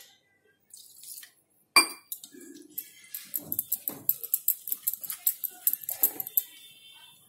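Wire whisk beating gram-flour (besan) batter in a stainless steel bowl: a sharp ringing clink against the bowl a little under two seconds in, then a fast run of clicks and scrapes, several a second, as the flour is worked into a thick batter with water.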